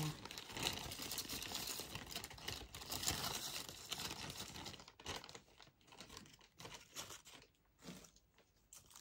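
Rustling and crinkling of gold decorative sprigs being handled and pushed into a Christmas centrepiece, busy for about the first five seconds, then sparser scattered rustles and small clicks.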